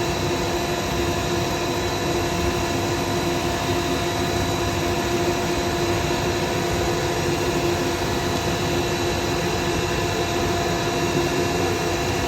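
Dust extractor running with a steady drone, together with a wood lathe spinning a pen blank during dry sanding with 2,000-grit abrasive.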